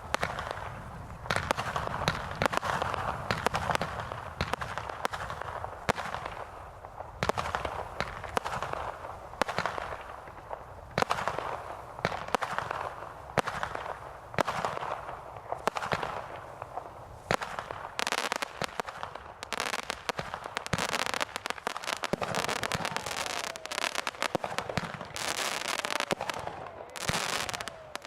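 Consumer aerial fireworks going off one after another: sharp bursts with crackle trailing after them. About two-thirds of the way in the bursts come much faster and overlap, and a couple of falling whistles are heard near the end.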